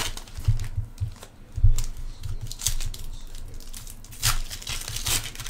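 Foil trading-card pack wrappers being torn open and crinkled, in irregular bursts, with scattered dull thumps of handling.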